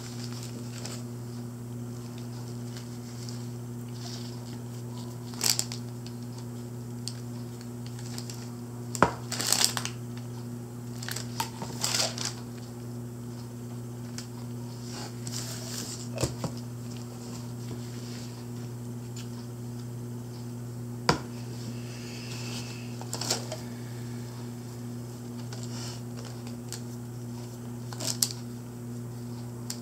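Scattered rustles and crinkles of a paper sheet and a few light knocks as a small painted figurine is handled and set down on it, over a steady low hum.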